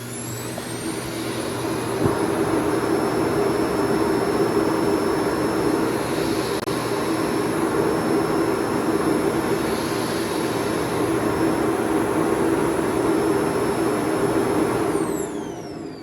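Samsung Bespoke Jet Bot robot vacuum's motor running loudly. A high whine is still climbing as it spins up, then it settles into a steady rush with a low hum. Near the end it winds down with a falling whine.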